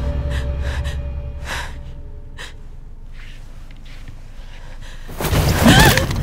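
A woman's short, sharp breaths over a low droning rumble that fades away in the first two seconds. About five seconds in, a sudden loud surge of sound with a gasping cry.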